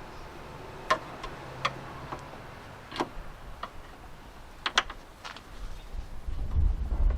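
Scattered sharp metal clicks and taps from hand tools and parts being worked inside a car door, about eight at irregular intervals, with a low rumble building near the end.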